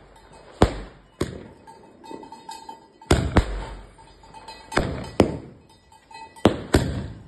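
Firecrackers going off: about eight sharp bangs at uneven spacing, several in close pairs.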